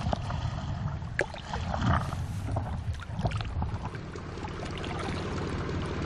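A paddle dipping and splashing in the water beside an inflatable stand-up paddleboard, with a few sharp splashes among a steady wash of water.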